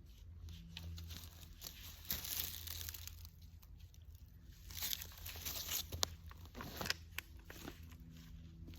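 Rustling and crinkling handling noise in two stretches, with a few sharp clicks, over a steady low hum; no shots are fired.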